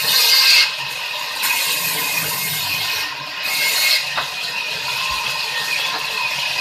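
Sawmill band saw running and ripping a long plank into a thin strip: a steady hiss over a faint whine, louder in the first half-second and again about four seconds in.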